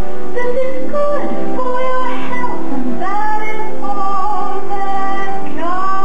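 Soundtrack of an audio-animatronic stage show played through the theater speakers: a woman singing over instrumental music, her notes swooping up into long held tones.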